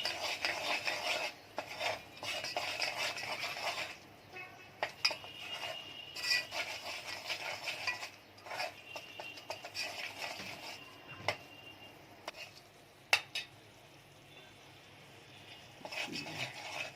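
Spoon scraping and stirring flour as it toasts in ghee in a pot, making a béchamel roux, in several spells of scratchy scraping. It is broken by a couple of sharp knocks against the pot and goes quieter near the end.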